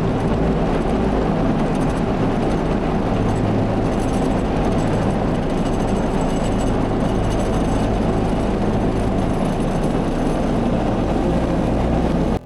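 Tractor engine running steadily under load while pulling a bush hog rotary mower through grass: a loud, unbroken engine-and-cutter drone.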